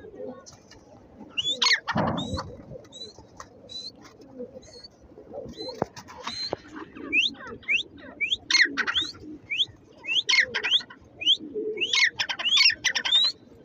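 Grey francolin calling: a series of short, shrill notes that each rise in pitch, coming quicker and closer together in the second half. Domestic pigeons coo softly underneath.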